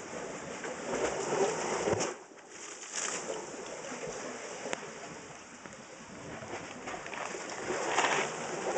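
Sea water washing and trickling over a rocky shore, swelling about a second in and again near the end, with a few small clicks.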